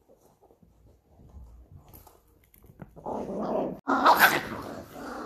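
Chihuahua growling angrily, starting about three seconds in and turning louder and harsher about a second later.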